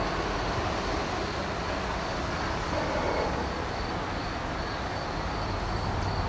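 Steady rumble of road traffic from a main road in the distance.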